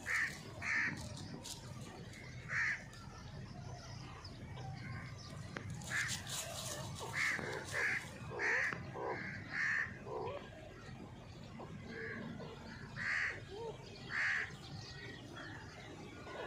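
Grey francolin (teetar) calling: about a dozen short, clipped notes, spaced irregularly a second or so apart, some in quick pairs. Dry leaves rustle and scratch about six seconds in.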